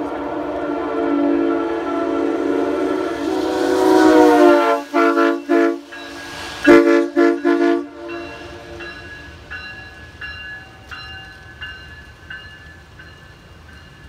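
Nathan Airchime K3HA three-chime locomotive air horn sounding a chord: one long held blast, then a string of short, sharp blasts in two quick groups that cut off about eight seconds in.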